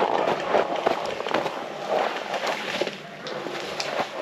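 Snow and dry forest litter crunching and crackling under movement over a snowy forest floor, with many sharp little snaps throughout.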